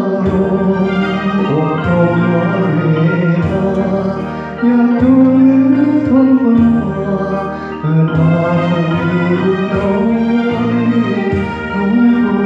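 An elderly man singing a Thai song into a karaoke microphone over a karaoke backing track, holding long, wavering notes.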